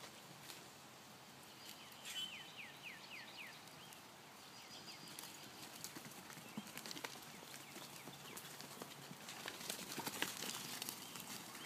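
Hooves of horses and donkeys clopping and thudding on dirt as they run about, busiest and loudest near the end. About two seconds in, a bird sings a quick run of short falling chirps.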